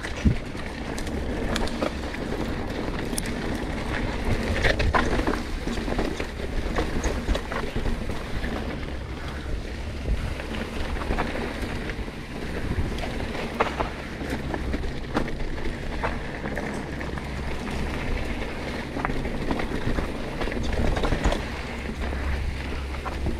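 Wind buffeting an action camera's microphone while a Yeti SB100 mountain bike rolls down a dirt trail, with scattered knocks and rattles from the bike over rough ground.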